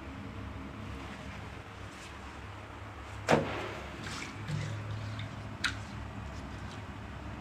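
A steady low hum with one sharp knock a little past three seconds in and a fainter click about two seconds later.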